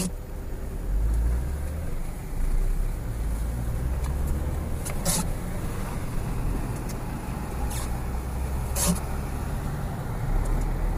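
Car engine and road noise heard from inside the cabin while driving, a steady low rumble that grows louder about a second in as the car pulls through an intersection. A few short sharp clicks come through over it.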